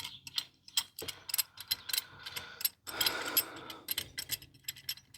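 Irregular metallic clicks and rattles of hand tools and brake parts being handled during front brake work.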